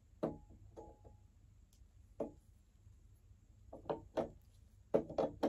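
Hard plastic knocks and clunks from the handle of a Eureka The Boss 1934B upright vacuum being pushed and worked into its socket on the vacuum's body. A few spaced knocks, some with a short ring, come first, then a quicker run of them in the second half.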